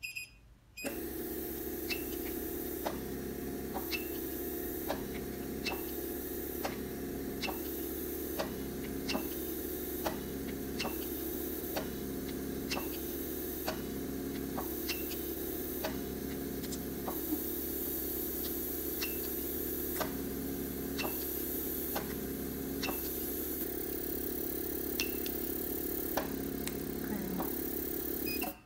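Fractional RF microneedling machine running in automatic mode: a touchscreen beep, then a steady mechanical running noise with a sharp click about once a second as the handpiece fires its needles, along with short high beeps. The noise stops suddenly near the end.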